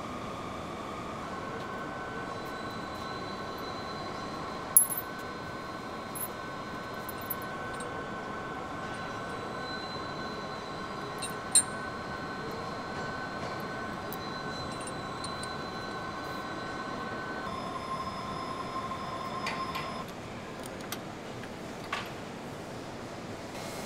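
Steady workshop background hum with faint whining tones, broken by a few sharp metallic clicks as metal fittings are handled.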